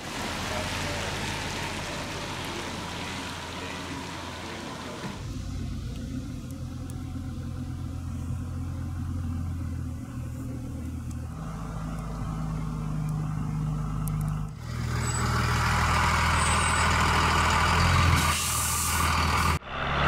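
Bus engine running with a steady low hum, the sound changing abruptly a few times; a short hiss near the end.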